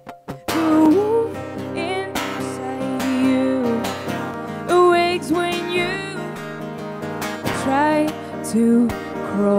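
A woman singing a slow song in English to her own strummed acoustic guitar. The strumming breaks off briefly at the start, and her voice comes in about a second in.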